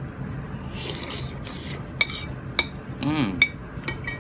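Metal spoon and fork clinking against a bowl of laksa while eating, about five sharp clinks in the second half, after a brief noisy slurp from the spoon about a second in.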